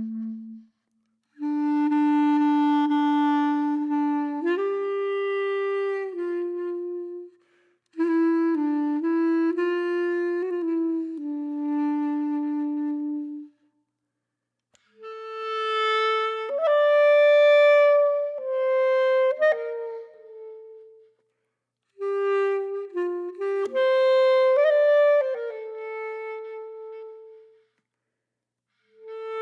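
Background music: a solo wind instrument playing a slow melody in four phrases, each separated by a brief silence.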